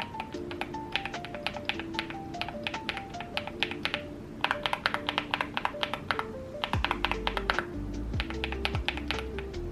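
Fast typing on Osume mechanical keyboard switches: a dense run of clacking keystrokes, a brief pause about four seconds in, then more rapid typing that thins out near the end. Background music with a stepping melody plays throughout, and a deep bass comes in about seven seconds in.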